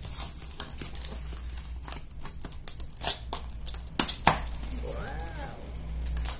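Brown paper shipping envelope being cut open with a blade and pulled apart: paper crackling and rustling, with several sharp rips, the loudest about three and four seconds in. A brief hum of a voice comes about five seconds in.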